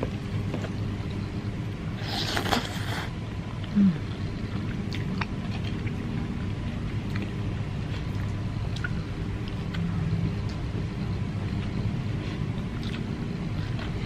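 Steady low background hum, with faint scattered clicks and small sounds of fingers scooping rice from a plate and chewing. A brief rustling burst comes about two seconds in, and a short low hum near four seconds.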